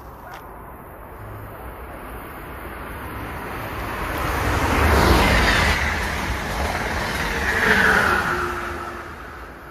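A vehicle passing close by, its noise swelling to a loud peak about five seconds in and a second peak near eight seconds, then fading away.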